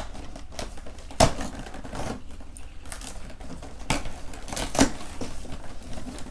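Hands working open a cardboard advent calendar compartment and handling the packaging inside: a run of small clicks and rustles with a few sharper knocks, the loudest about a second in and near five seconds.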